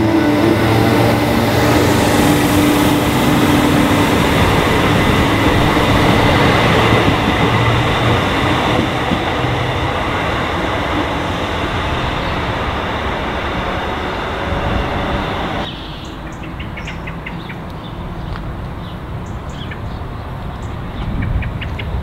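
Northern electric multiple unit passing close on the electrified line: wheels rumbling on the rails with a steady motor whine, slowly fading as it runs away. About two-thirds of the way through the sound drops abruptly to quieter lineside background with faint bird chirps.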